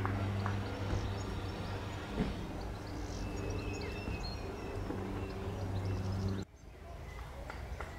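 Diesel multiple unit's engine idling, a steady low hum, with birds chirping over it; the hum stops abruptly about six and a half seconds in.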